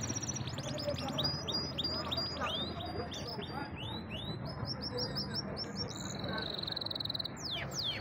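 Canary singing a long, fast song of rapid chirps and trills, with a steady held trill about three quarters of the way in and a few steep downward whistles near the end.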